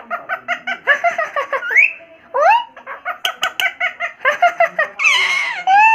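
Indian ringneck parrot chattering: fast runs of short clucking notes, about seven or eight a second, broken by quick rising whistled calls, with a louder, harsher call about five seconds in.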